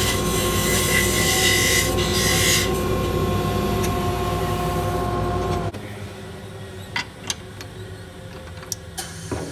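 Mini lathe running with a 1/8 inch parting tool cutting into a spinning spalted maple blank, a hissing scrape over the steady motor hum for the first few seconds. The motor then cuts off abruptly a little more than halfway through, followed by a few sharp metal clicks from the chuck key loosening the four-jaw chuck.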